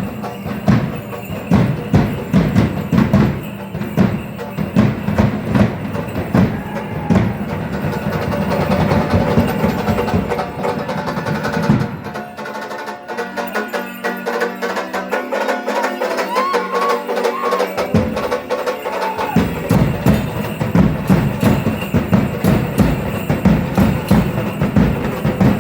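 Danza drums beating a steady, driving rhythm with lighter clattering percussion over it. The deep drum drops out about halfway for several seconds while the lighter percussion keeps going, then comes back in.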